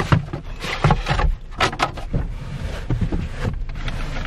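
Irregular rustling, scraping and knocks of handling: a cardboard box being shifted about and a tall rubber boot being pulled on.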